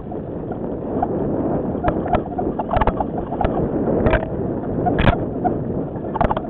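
Mountain bike riding fast along a dirt forest trail, heard from a camera on the bike or rider: steady wind and tyre noise, with scattered knocks and rattles as the bike goes over bumps.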